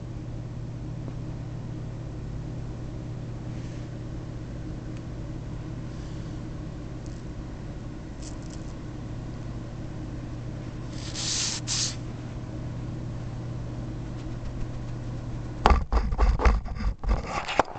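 A steady low hum. A short hiss comes about eleven seconds in. Near the end comes a cluster of loud knocks and rubbing from the camera being handled and moved.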